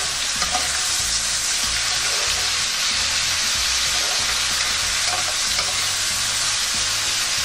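Diced pork, sausage and carrots sizzling steadily in oil with soy and oyster sauce in a pan while being stirred, with a few light clicks of the utensil against the pan.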